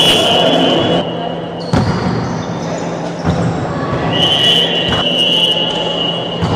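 Volleyball being played in a large echoing hall: sharp smacks of the ball being hit, about three of them, under steady spectator chatter. A referee's whistle sounds briefly at the start and again for about a second and a half just after four seconds in, signalling the serve that is struck about a second later.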